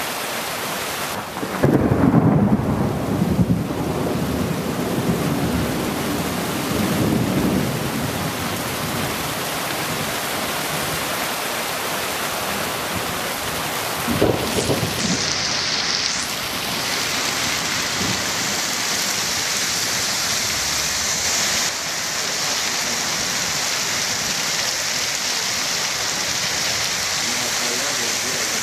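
Heavy rain pouring steadily at the onset of a thunderstorm, with a loud rumble of thunder about two seconds in and a shorter loud burst about halfway.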